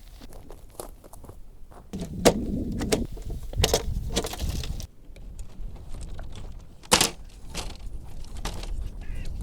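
Irregular clicks and knocks of handling, with a louder rustling, clattering stretch about two seconds in and a single sharp knock about seven seconds in. Geese begin honking right at the end.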